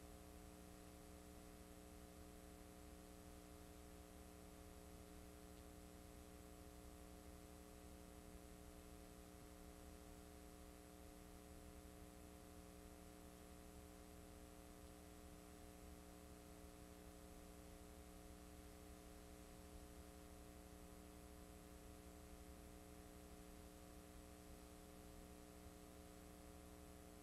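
Near silence: a faint, steady electrical mains hum over low hiss, from the playback of a blank stretch of videotape.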